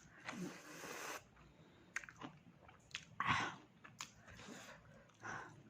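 A person chewing and biting pork close to the microphone: a handful of irregular crunches and mouth clicks, the loudest a little past three seconds in.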